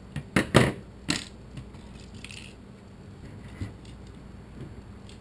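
Small plastic parts of a Thermacell mosquito repeller clicking and knocking as they are handled and worked with a small tool. There are a few sharp clicks between half a second and a second in, then lighter ticks and a brief rustle.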